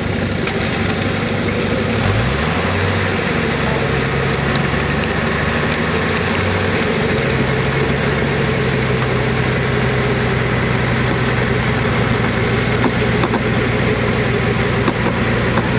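Off-road 4x4 engine running steadily, its pitch rising about two seconds in and then holding.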